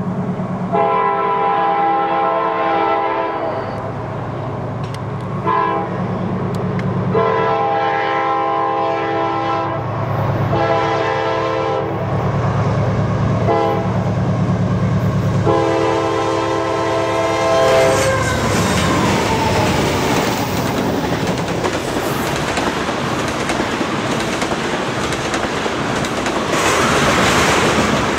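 Freight locomotive's multi-chime air horn sounding a series of long and short blasts over the diesel engines' rumble as the train approaches, its pitch falling as the locomotive passes about 18 seconds in. Then the train of tank cars rolls by with a steady rumble and clatter of wheels on rail joints.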